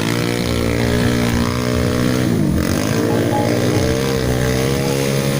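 Small ATV engine running under throttle; its pitch dips about halfway through and climbs back as the throttle is eased and opened again.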